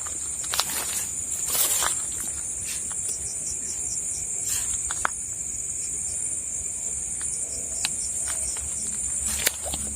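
Steady, high-pitched chorus of night insects such as crickets, with scattered light clicks and rustles.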